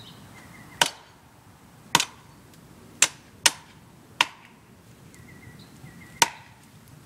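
Axe blows chopping into a standing tree trunk: six sharp, woody strikes at an uneven pace, the last after a pause of about two seconds.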